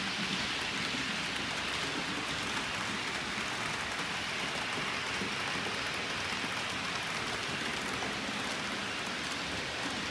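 Steady hiss and faint rumble of model trains rolling along the layout's track, their wheels running on the rails.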